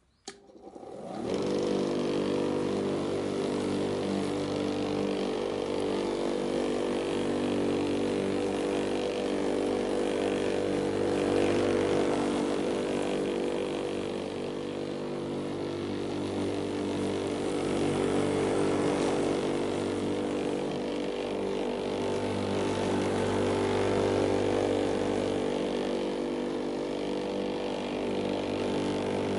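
Lawn mower engine starting, its pitch rising quickly to a steady run within the first second or two. It then runs steadily while mowing, its loudness gently swelling and easing.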